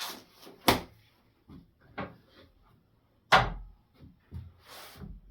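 Sharp knocks and light clatter of a bowl and utensils being handled while marinade is scooped onto chicken: two loud knocks, one under a second in and one past three seconds in, with a few softer taps and a brief rustle near the end.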